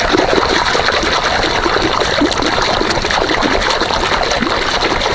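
Shallow water splashing and trickling close by as a hand moves through it, a busy steady patter of small splashes.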